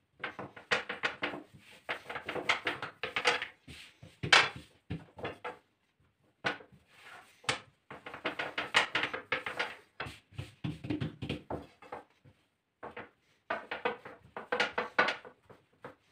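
A long, thin wooden rolling pin (oklava) rolling lahmacun dough out thin on a kitchen counter. The wood clatters and knocks quickly against the countertop in several runs broken by short pauses.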